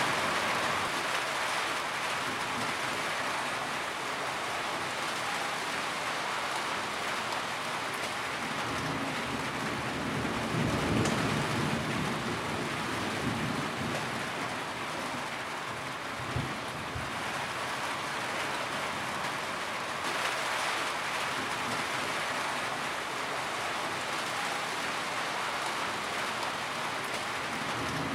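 Steady rain pattering on a tin roof. A low rumble swells about ten seconds in, and there is a short low thump a few seconds later.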